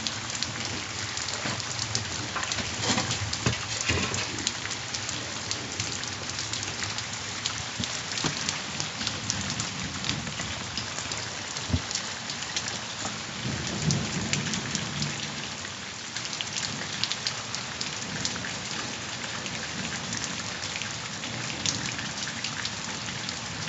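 Heavy rain falling steadily on the ground and nearby surfaces, with many close drop hits. Low rolls of thunder come in about three seconds in and again around fourteen seconds in.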